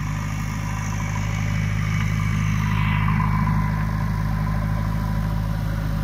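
Diesel engine of a JCB backhoe loader running steadily as the machine drives, getting a little louder about two to three seconds in.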